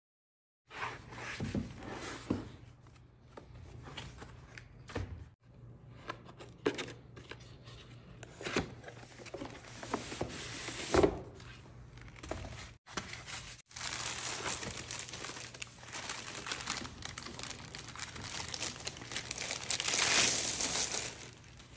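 Unboxing handling noise: cardboard box packaging being opened with rustling, scraping and a few sharp knocks, then a clear plastic bag crinkling as the wall clock is drawn out of the box, loudest near the end. It starts about a second in, after silence.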